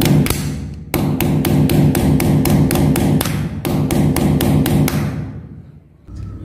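A hammer tapping an extra nail held as a punch, driving a masonry nail through a surface-mount power socket's plastic base into the wall. The blows come quickly and evenly, about four a second, with a brief break about a second in, and stop about five seconds in.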